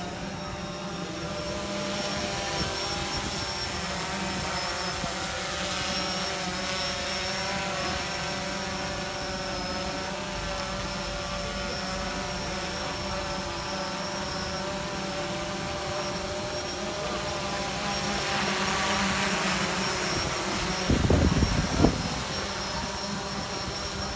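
Small camera drone's propellers giving a steady hum of several tones at once. Two loud low thumps about three seconds before the end.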